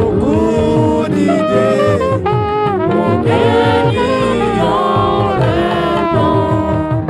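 Band music with brass and saxophone lines over a moving bass.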